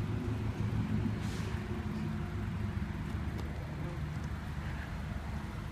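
Steady low rumble of road traffic, with a brief hiss about a second in.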